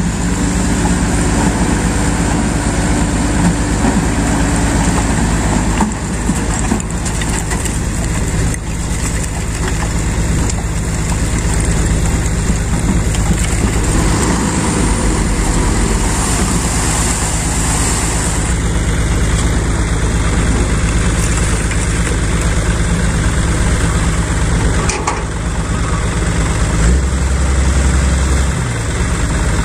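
Mitsubishi Fuso Canter dump truck's diesel engine running steadily while the bed is hoisted to tip out its load of earth and rock, with a deeper drone for about a second and a half near the end.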